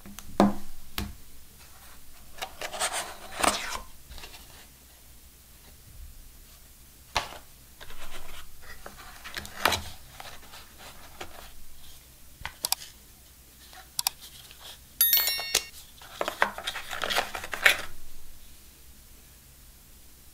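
Gloved hands handling a smartphone's cardboard box and inserts and lifting a plastic wall charger out of its tray. There are scattered clicks and taps and several rustling scrapes, with a brief squeak a little after the middle.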